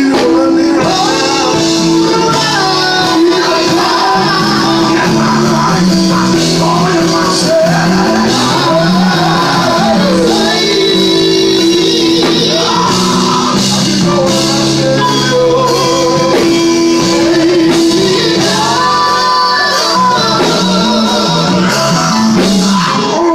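Gospel group singing with live band accompaniment, voices carrying a melody over a moving bass line.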